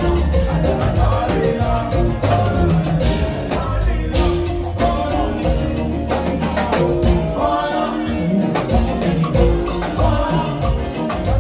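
Live band playing Latin dance music, with a drum kit keeping a steady beat under pitched instruments and singers on microphones.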